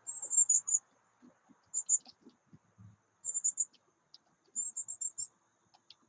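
An insect chirping in short trains of very high, even-pitched pulses, each burst about half a second long and repeated every second or so, with faint light ticks in between.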